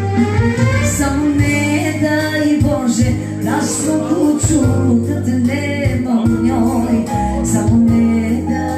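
A woman sings live into a microphone over a Korg Pa4X arranger keyboard accompaniment, with a steady bass line and a light regular beat.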